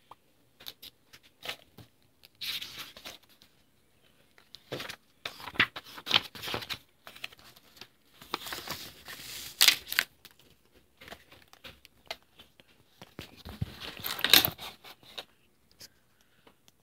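Glossy comic-book pages being turned by hand: about four rustles of stiff paper, with small clicks and taps between them. The loudest rustle comes near the end.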